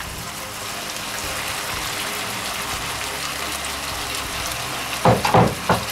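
Hot oil in a frying pan sizzling steadily as frozen mixed vegetables are tipped in on top of frying curry-coated chicken pieces.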